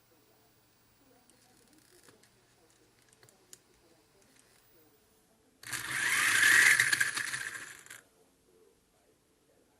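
A small electric motor in an RC car whirs loudly for about two seconds, more than halfway in, with a whine that rises in pitch before it cuts off.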